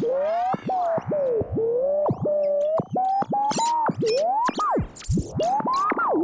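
Game-show sound effect: an electronic tone that swoops up and down in pitch in quick, broken slides, with clicks between them, like a DJ record scratch.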